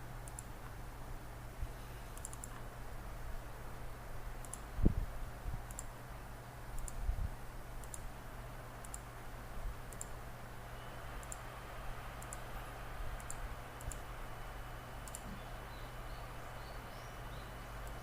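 Computer mouse clicking at an even pace, about one click a second, over a low steady hum, with one louder dull thump about five seconds in.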